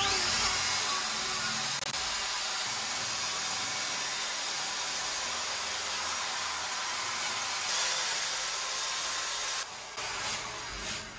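Corded drill spinning a wire brush against rusty steel floor framework, scouring off loose rust: a steady scraping whir that stops near the end.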